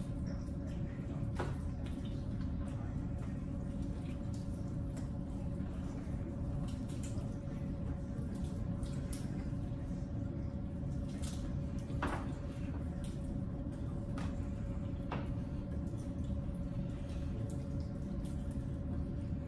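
People eating chicken wings: wet chewing and smacking, with a few sharp clicks, over a steady low hum.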